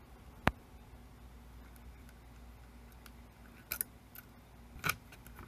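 Small clicks and taps from handling parts inside an opened cassette recorder: one sharp click about half a second in, then a few fainter clicks near the end, over a low steady hum.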